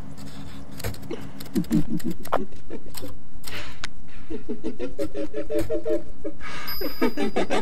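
Title-sequence sound effects: a run of sharp typewriter-like clicks and glitchy stutters over a low hum. It gets louder about two seconds in, and warbling pitched effects come in past the middle and again near the end.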